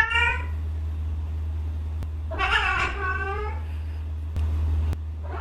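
A cat meowing: a short meow at the start and a longer, drawn-out meow about two and a half seconds in, with another meow starting at the very end, over a steady low hum.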